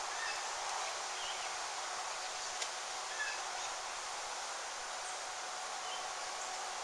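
Steady outdoor hiss with a few faint, short bird chirps and one sharp click a little over two and a half seconds in.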